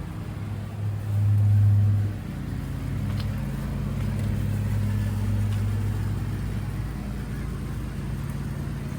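Yamaha F115 four-stroke outboard idling with a steady low hum, swelling louder for about a second near the start.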